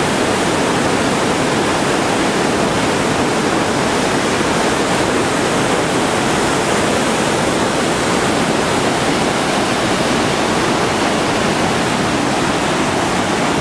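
Large waterfall pouring over rock: a steady, loud rush of falling and churning whitewater.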